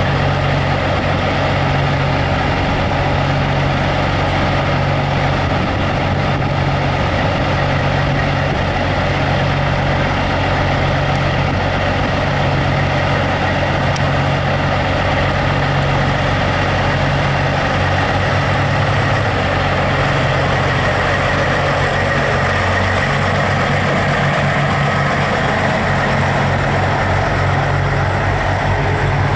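Diesel semi-truck engines idling and running at low speed. Near the end the low engine note changes and becomes choppier as a tractor-trailer moves past.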